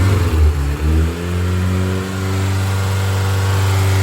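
Toyota Starlet Glanza's freshly rebuilt forged 1.3 L 4E-FTE turbo four-cylinder engine running during warm-up after its first start. It runs uneven for about a second, then its note rises slightly and settles into a steady, even run.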